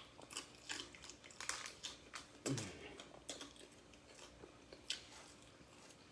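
A person chewing bacon-wrapped chicken close to the microphone: a run of soft, irregular mouth clicks and smacks, busier in the first half.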